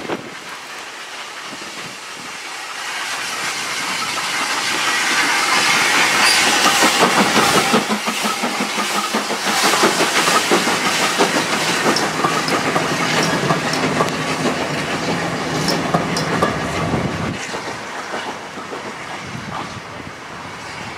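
Hudswell Clarke 0-6-0 saddle tank steam locomotive hauling a coach past at close range, with steam hissing and wheels clicking over the rail joints. The sound swells to its loudest midway, then fades as the train moves away.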